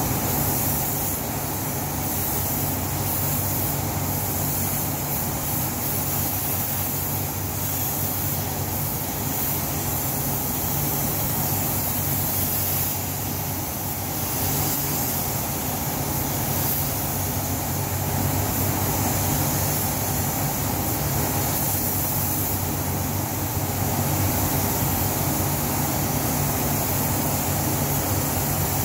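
Paint booth ventilation fans running with a steady hum, under the hiss of a compressed-air spray gun spraying paint. The hiss flickers as the trigger is worked and drops out briefly a little before halfway.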